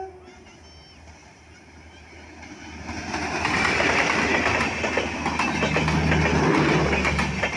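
A horn note dies away at the start. Then an express passenger train's rumble builds about three seconds in and turns loud as the train runs through at speed, its wheels rolling and clattering over the rail joints.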